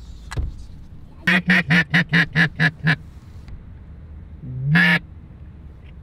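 Duck quacking: a quick run of about eight quacks, then a single longer quack a second and a half later.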